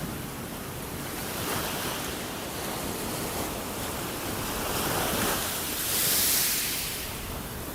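Ocean waves breaking and washing ashore, a steady rush that swells and ebbs, with the loudest surge about six seconds in.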